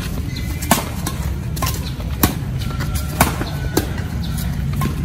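Badminton rally: rackets striking a shuttlecock, five or so sharp hits roughly every half second to a second, over a steady low background rumble.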